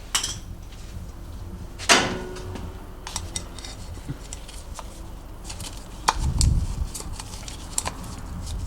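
Metal tools and parts clinking and clattering in scattered knocks. A sharp clank about two seconds in rings on briefly, and a dull low thud comes around six and a half seconds.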